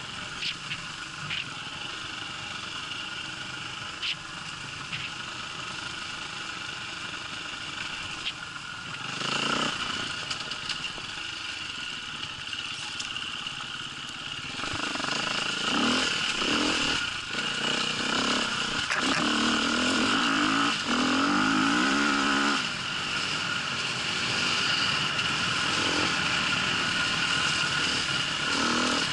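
Dirt bike engine on the move, running at moderate revs, then louder and revving up and down from about halfway through as the throttle is worked. A few sharp clicks come in the first seconds.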